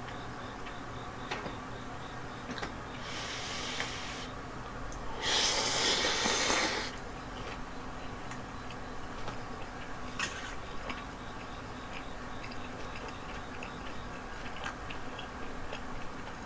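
Instant ramen noodles slurped up, a short slurp about three seconds in and a longer, louder one about five seconds in, followed by close-up chewing with small wet mouth clicks.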